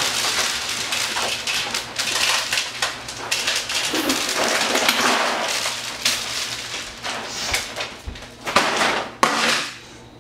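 Dry dog kibble rattling as it is poured from a paper bag into a plastic dog bowl and scattering onto a wooden floor, with a few sharper clatters near the end.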